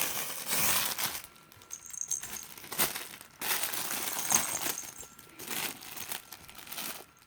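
Yorkie puppies playing with a toy ball: crinkling and rustling in spells, with a sharp click about three seconds in and a couple of brief high jingles.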